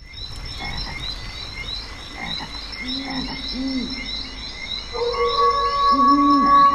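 Night-time outdoor ambience of frogs croaking, with fast repeating high chirps behind them. A steady held tone joins about five seconds in.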